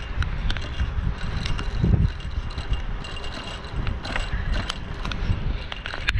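Mountain bike coasting downhill: a steady low rumble of wind on the microphone and tyres on the road, with the bike's parts rattling and clicking over bumps.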